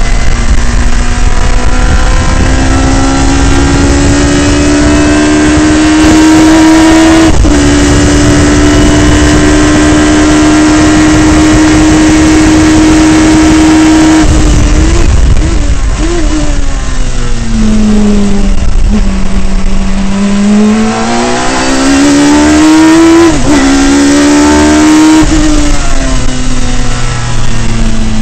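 Radical SR3 sports racer's motorcycle-derived four-cylinder engine under hard acceleration, revving high with an upshift about seven seconds in and a long rising pull. Around the middle comes a quick run of downshifts with the pitch dropping for a slow corner, then it climbs back up through the gears with more upshifts near the end.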